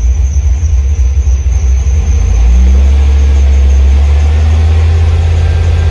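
LS V8 engine running with its revs held up by a cable-actuated hand throttle, a steady low rumble heard from inside the cab that gets a little louder about two seconds in.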